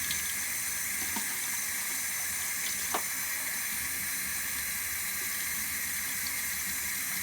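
Tap water running steadily into a bathtub during a dog's rinse, an even hiss, with a faint small knock about three seconds in.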